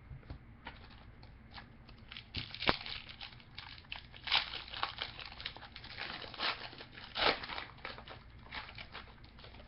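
Trading-card pack wrapper being torn open and crinkled by hand: an irregular run of crackles and rustles, with a sharp snap about two and a half seconds in.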